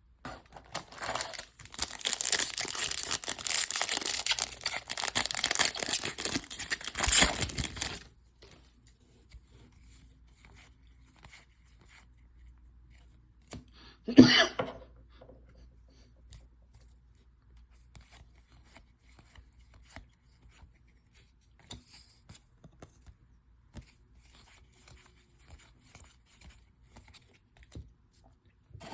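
A baseball card pack's foil wrapper being torn open and crinkled for several seconds. It then goes quiet except for faint clicks of cards being handled, with one brief loud rustle about halfway through.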